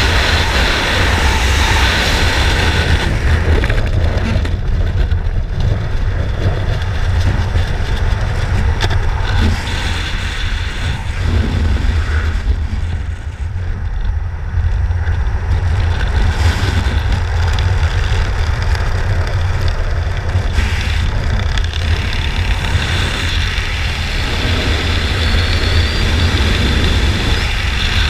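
Wind buffeting a skydiver's helmet-camera microphone: loud rushing wind with a heavy low rumble in freefall, the hiss easing after about four seconds as the parachute opens and the fall slows, then steadier wind under the canopy.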